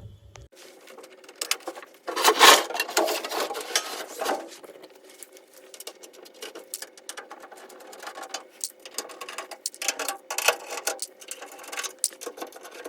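Clicking and rattling of hand work on a microwave's sheet-metal outer case as it is taken apart, the busiest stretch about two to four seconds in.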